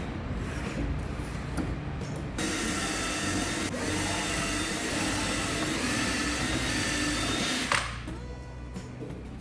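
A small electric power tool's motor runs steadily for about five seconds, then cuts off with a sharp click.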